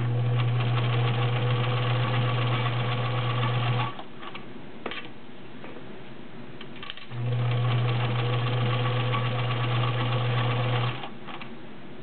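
White Model 764 all-metal sewing machine stitching through seven layers of denim: the motor's steady hum under the needle's rapid stitching, in two runs of about four seconds each. Between them the machine stops for about three seconds, with a single click in the pause.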